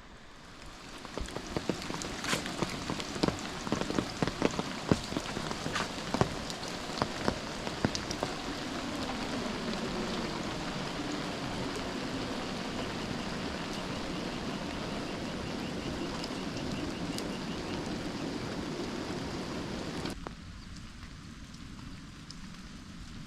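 Rain falling steadily, with sharp strikes of single heavy drops close by in the first several seconds. It then settles into an even downpour, which suddenly drops to a softer rain sound about 20 seconds in.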